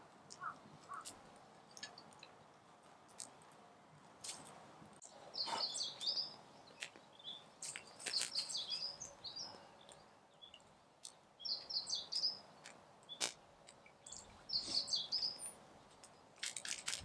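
A bird chirping in four short bursts of rapid high chirps, about three seconds apart, over scattered sharp clicks and snaps.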